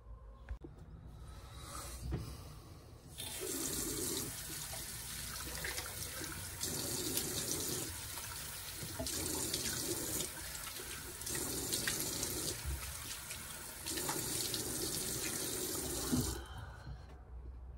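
Bathroom washbasin tap running, with water cupped in the hands and splashed on the face. The sound of the stream changes in short spells every second or two as the hands go under it and come away. The water starts about three seconds in and is shut off near the end.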